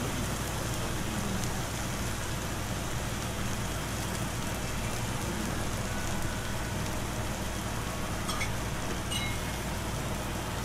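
Steady hiss and low hum of kitchen background noise, with a couple of faint light clinks about eight and nine seconds in.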